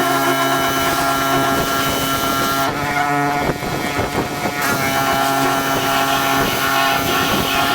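Pressure washer engine running steadily under water-spray hiss, the hiss easing briefly midway.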